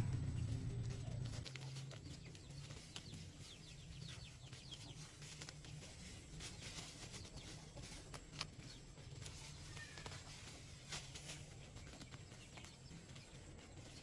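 Faint bird calls, like clucking fowl, with scattered light clicks. A low rumble at the start dies away within about a second and a half.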